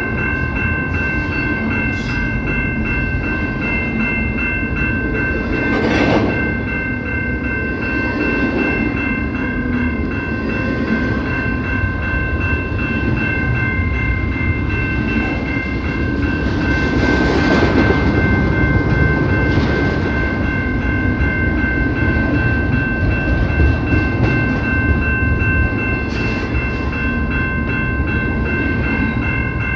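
CPKC freight train rolling by, its rail cars rumbling and clacking over the rail joints, under a steady high-pitched multi-note tone that holds unchanged throughout. The rumble swells briefly about six seconds in and again around seventeen to eighteen seconds in.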